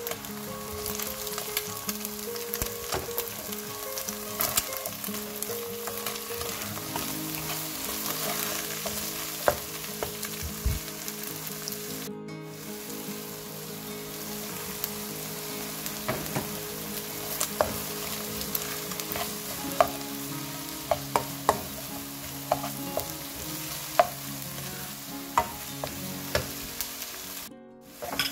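Onion, scrambled egg and chopped peppers sizzling in oil in a nonstick pan while a plastic spatula stirs them, with sharp taps and scrapes against the pan that come more often in the second half.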